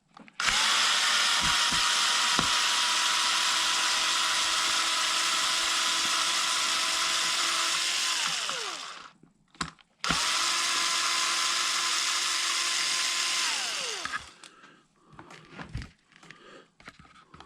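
Electric drill backing out the small servo screws, run twice: a steady whine for about eight seconds that falls in pitch as the drill winds down, then a second run of about four seconds, followed by a few light clicks.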